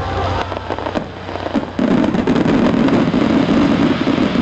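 Fireworks display: scattered pops at first, then a loud, dense run of crackling from about two seconds in.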